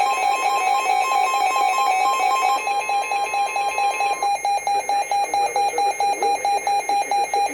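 NOAA Weather Radio's steady 1050 Hz warning alarm tone, sounding together with a weather alert radio's rapid electronic alarm beeps. The steady tone stops about four seconds in, while the beeping goes on. This is the alert for an incoming severe thunderstorm warning.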